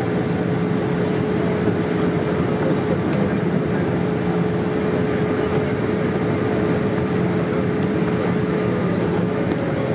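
Steady cabin noise of a Boeing 787-8 airliner in descent: the even roar of its engines and the airflow, heard from a window seat, with a steady hum running through it.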